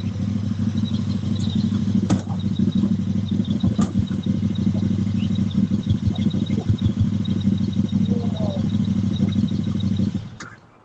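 An engine running steadily, with a couple of sharp knocks and some clatter; it fades out near the end.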